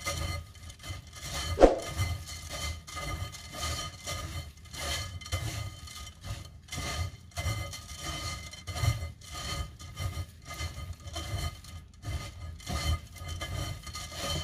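A gloved hand kneading and mixing soaked glutinous rice with gấc fruit pulp in a stainless steel mesh strainer: a run of irregular rubbing, rustling strokes of wet rice grains against the mesh. There is one sharp clink about a second and a half in.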